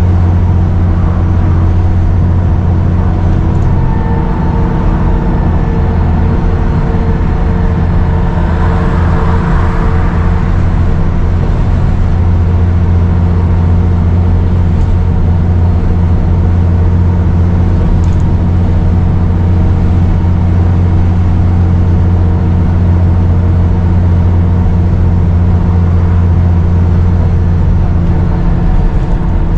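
Diesel engine of a Dennis Trident 2 / Enviro 400 double-decker bus running steadily under way, a deep even drone with a slight turbo whistle over it. There is a brief rush of noise about nine seconds in.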